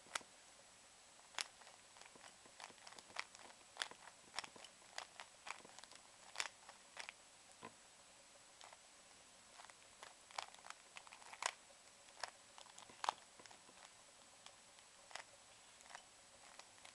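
Rubik's Cube faces being turned in quick bursts during a speed solve, with short plastic clicks and clacks coming in irregular clusters.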